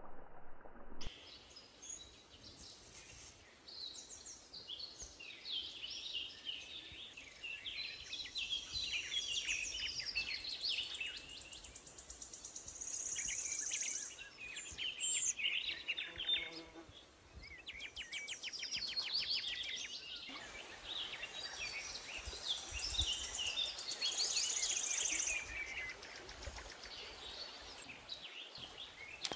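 Outdoor ambience: many birds chirping and calling, with a high insect buzz that swells and fades twice.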